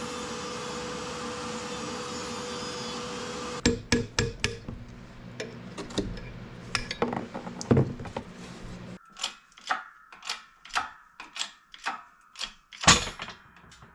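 A steady hum for the first few seconds, then a series of sharp hammer strikes on metal, irregular at first and then about two a second, the loudest blow near the end.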